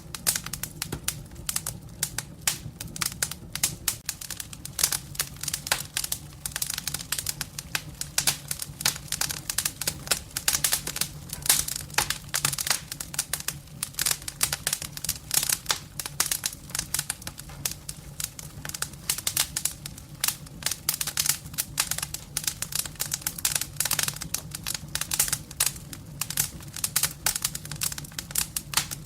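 Wood fire burning in a fireplace, with dense irregular crackling and popping over a low steady hum.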